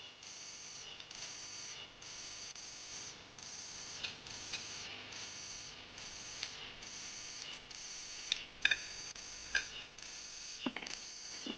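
High chirping that repeats in a steady rhythm, about one and a half pulses a second, with scattered sharp clicks and knocks that come more often near the end.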